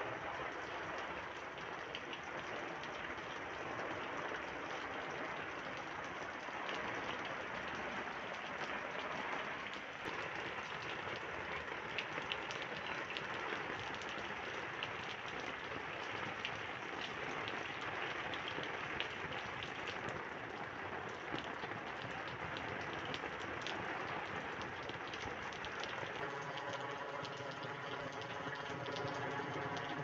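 Heavy rain falling on water and wet ground: a steady hiss dotted with the clicks of individual drops. About four seconds before the end, a steady hum with several tones comes in underneath.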